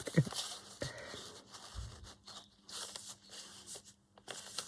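Paper and card scraps being handled on a desk, rustling and scraping in short bursts, with a soft low bump about two seconds in.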